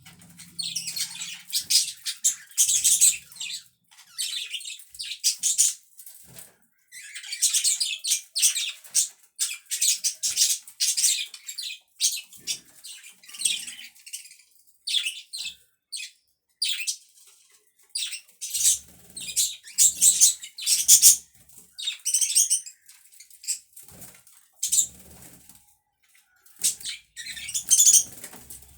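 Pet budgerigars chattering, a string of quick high chirps and warbles with short pauses between.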